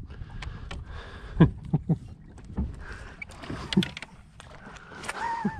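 Water lapping against a fishing boat's hull, with several sharp knocks of gear on the deck. The loudest knock comes about a second and a half in, and a short wavering tone follows near the end.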